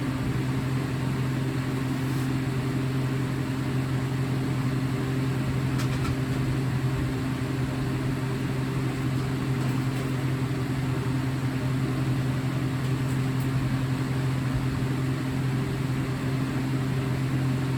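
Steady low hum with a few higher overtones, unchanging throughout.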